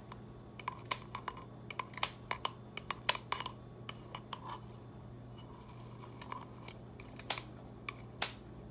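Scissors snipping lemongrass blades down inside a glass jar of oil. There is a quick run of sharp clicks through the first four seconds, a pause, then two more snips near the end.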